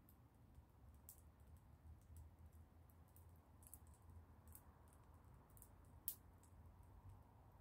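Faint, irregular crackling and snapping of a small wood fire of twigs and sticks burning in an open fire pit, with one sharper pop about six seconds in.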